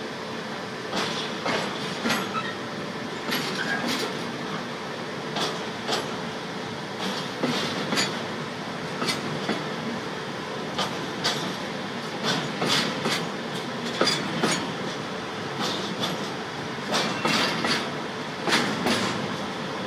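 Intermodal freight train of container and swap-body wagons rolling past close by, with a steady rumble and repeated clacks of the wheels over the rail joints.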